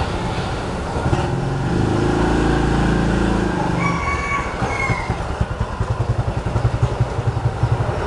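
A motor vehicle engine running close by. A deep engine sound swells from about a second in, then turns to a rapid low throbbing in the second half, with a short high tone around the middle.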